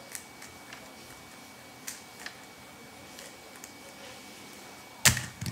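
A 3x3 Rubik's cube being turned by hand, with faint scattered clicks of its layers, then a loud thump near the end as the solve finishes.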